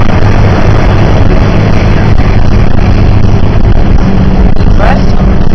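Steady in-cabin driving noise of a car at highway speed on a snowy road: a low engine drone under loud, even road and tyre noise.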